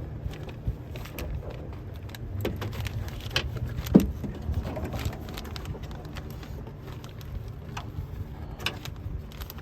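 Scattered small clicks and light knocks of metal and plastic parts being worked loose inside a car door, with one sharper knock about four seconds in, over a steady low hum.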